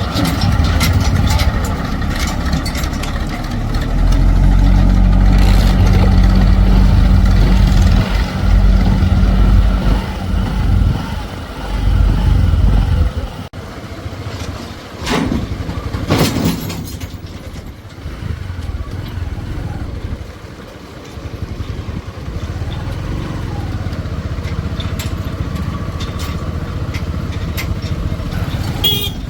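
Diesel engines of a backhoe loader and tractors working. An engine runs hard and loud for several seconds, then drops back to a lower, steady running. Two short noisy bursts come about halfway through.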